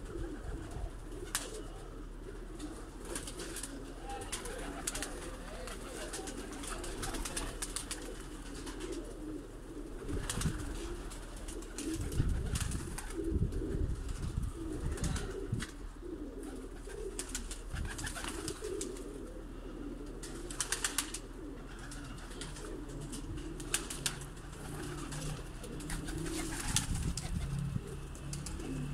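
Domestic pigeons cooing continually in a wire-mesh loft, with scattered sharp clicks and a few low thumps about halfway through.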